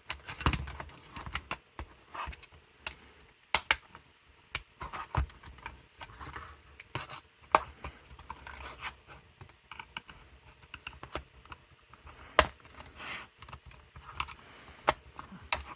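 Screwdrivers prying and scraping at the plastic clamshell cover of a 2015 Toyota Prius C door latch, with irregular sharp clicks and snaps as its tabs are worked loose; a few snaps are much louder than the rest.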